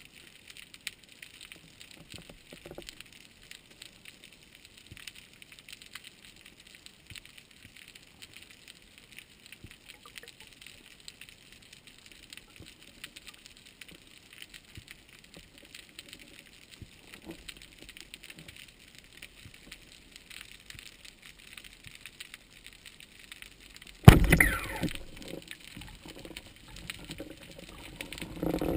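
Underwater ambience heard through a camera housing: a faint, dense crackle of tiny clicks. About 24 seconds in, a sudden loud bang, followed by rushing water noise.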